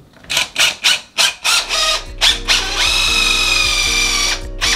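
Power drill boring pilot holes with a countersink bit into 2x6 lumber for lag screws. The trigger is blipped in several short spurts, then the drill runs steadily for about two and a half seconds with a whine that steps up slightly in pitch partway through, and ends with one more short spurt near the end. Background music with low notes plays underneath from about two seconds in.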